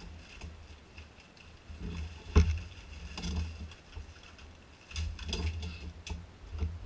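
Rummaging among objects on a cluttered workbench while searching for a roll of electrical tape: irregular bumps, clatter and rustling, with one sharp knock a little over two seconds in.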